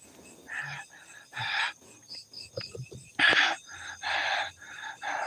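A man breathing hard, about five breathy puffs, with a faint high trilling of night insects behind.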